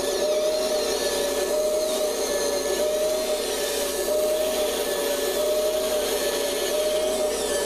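Electric motors and gearboxes of an all-electric RC excavator whining steadily as it works, with a tone that swells and eases about once a second.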